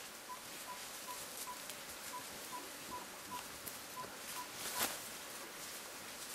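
A steady series of short beep-like notes on one pitch, about two to three a second, that stops about five seconds in. Beneath it, rustling and crackling of leaves and stems as young mountain gorillas shift about in the undergrowth, with one louder crackle near the end.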